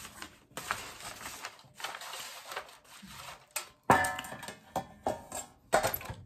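Handfuls of caramel corn and cheese popcorn being scooped and dropped back into metal popcorn tins: dry rustling, then sharp clinks and clatter against the tin just before four seconds in and again near the end.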